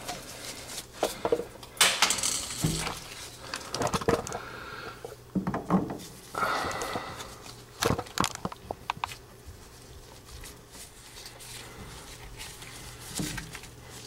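Gloved hands handling PVC condensate drain fittings and sealing their threads: scattered light plastic clicks, knocks and rustles, busiest in the first half and quieter toward the end.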